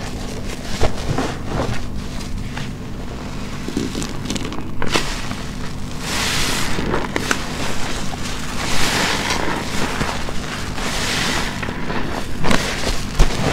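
Wet, soapy sponge squeezed and squished by hand: close crackling squelches, with longer hissing surges of foam and water pressed out about six seconds in and again around nine to eleven seconds, over a low steady rumble.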